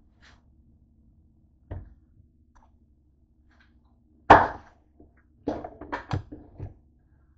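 Knocks and thuds of things being handled: a thump about two seconds in, a sharp knock just past halfway that is the loudest, then a quick run of knocks and clatters near the end, over a faint steady hum.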